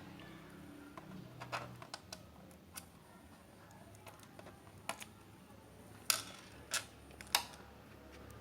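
Sparse light clicks and taps of a laptop's hard plastic case and small parts being handled, about eight in all, the sharpest three in the latter half.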